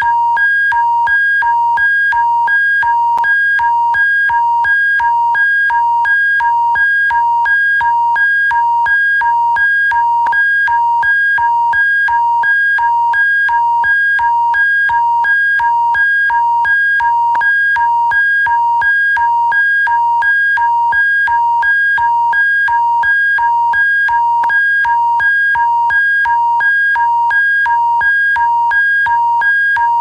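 Alberta emergency alert attention signal: two high electronic tones sounding together, beeping on and off in an even, rapid rhythm without a break, over a faint low hum.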